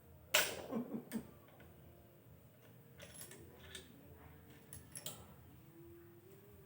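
A sharp metallic clank about half a second in, with brief ringing, then a few lighter clicks and taps: tools and engine parts being handled during engine assembly.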